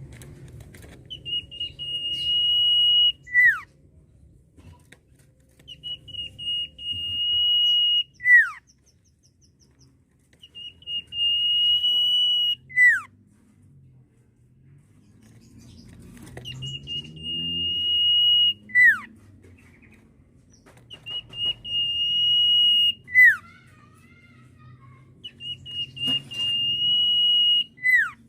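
Common iora (cipoh, sirtu) giving its long drawn whistle: a steady high note held about two seconds that ends in a quick falling note, repeated six times about every five seconds.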